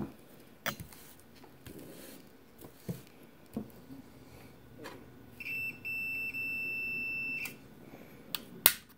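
Multimeter continuity beeper: two brief chirps, then a steady high-pitched beep of nearly two seconds as the test probes meet across a power cord conductor, the tone that signals an unbroken circuit. Light clicks and knocks of wire and probe handling surround it, with a sharp click near the end.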